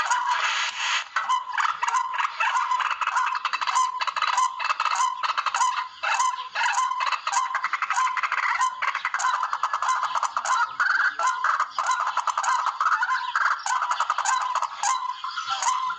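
Barred rail (tikling) calling: a continuous run of rapid, harsh repeated notes, the call used as a lure in rail hunting.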